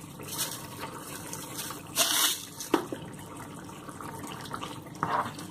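Chicken curry boiling in a nonstick kadai while a spoon stirs in the salt, giving a wet bubbling and sloshing. It has a louder scrape about two seconds in, a light knock shortly after, and another stir near the end.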